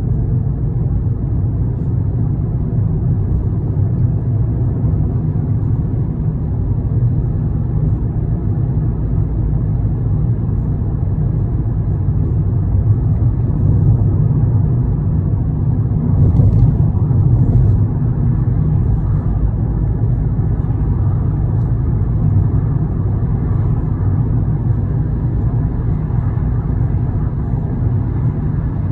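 Steady low rumble of a moving vehicle, running evenly throughout.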